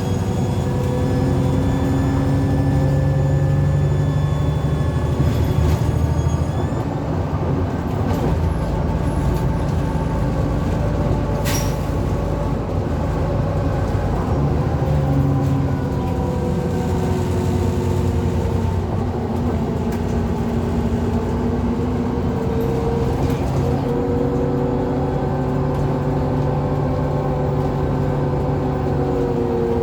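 Alexander Dennis Enviro400 double-decker bus under way on its Euro 5 diesel, with a high turbo whistle that stops about seven seconds in. A whining differential rises and falls in pitch with road speed, and a sharp click comes a little before the halfway point.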